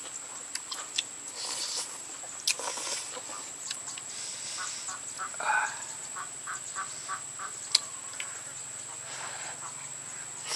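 Eating sounds from biting and chewing soft, gelatinous buffalo leg, with sharp clicks of chopsticks and bone. A little past the middle comes a run of short repeated calls, about three a second.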